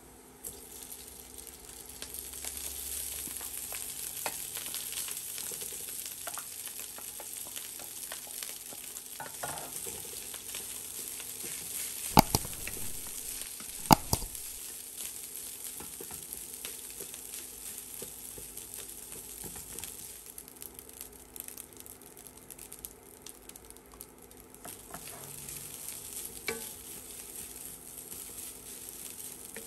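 Cold cooked rice and garlic sizzling in hot oil in a non-stick wok, stir-fried with a wooden spatula that scrapes and clicks against the pan. The sizzle starts as the rice goes in and builds over the first two seconds. Two sharp knocks come about twelve and fourteen seconds in.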